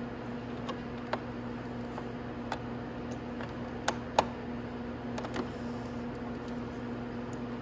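Scattered light clicks and taps of a screwdriver working a small screw out from inside a plastic motorcycle fairing, about half a dozen, two sharper ones close together around the middle, over a steady low hum.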